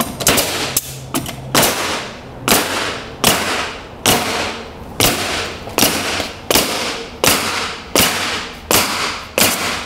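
Pneumatic coil roofing nailer firing nails through metal edge flashing, a sharp shot about every 0.8 seconds, some dozen in a row as the nails go in on a tight spacing.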